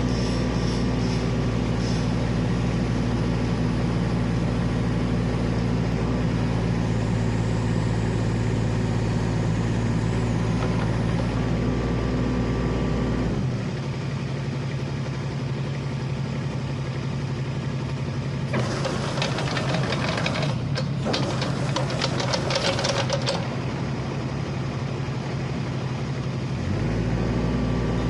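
Kubota RX-203S compact excavator's diesel engine running steadily. About halfway through its deep note falls away as the engine slows. A few seconds later a loud, rough hiss lasts about five seconds, and the deep engine note comes back near the end.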